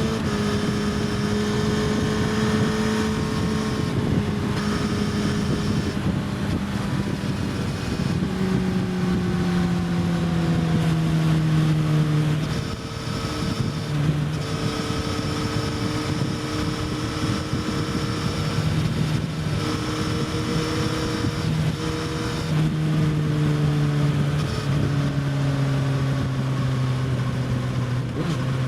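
Suzuki GSX-S1000 inline-four with an Austin Racing slip-on exhaust running hard on track, heard from the bike. The engine note holds, then falls for several seconds near the middle as the bike slows, with several sudden steps in pitch at gear changes, over steady wind rush on the microphone.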